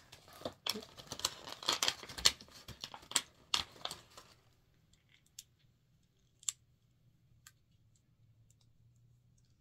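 Hands handling and opening a small face massager and its plastic packaging: a quick run of rustling, crinkling and clicking for about four seconds, then near quiet with a few faint clicks.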